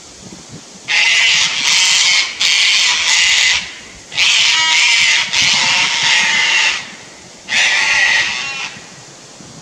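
Sulphur-crested cockatoo screeching loudly and harshly in three long bouts. This is mobbing alarm screeching at a lace monitor near its nest tree.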